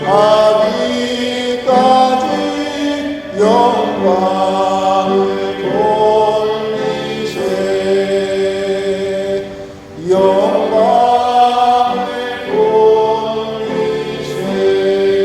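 Church congregation singing a slow hymn in long held notes, phrase by phrase, with short breaths between phrases.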